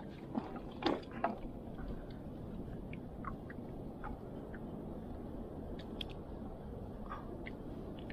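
Steady wash of water around a small fishing boat, with a few light knocks in the first second and a half and scattered small clicks after.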